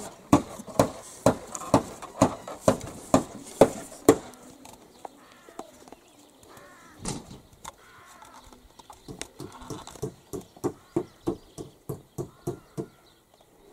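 Hammer blows on wood, about two a second, from someone building a wooden outdoor shower. The knocking breaks off for a few seconds in the middle and starts again about nine seconds in.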